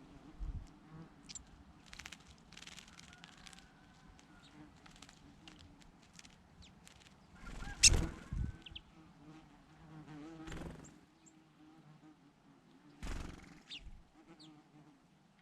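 Insects buzzing in a steady, wavering hum, with scattered short high chirps and two louder sharp thumps or splashes, about 8 and 13 seconds in.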